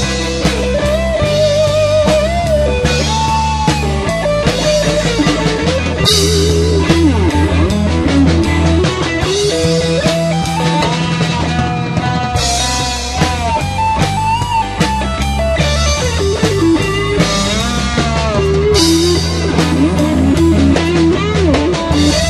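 Live rock band playing an instrumental passage: an electric guitar lead with bends and vibrato over bass guitar and drum kit, with a cymbal crash about every six seconds.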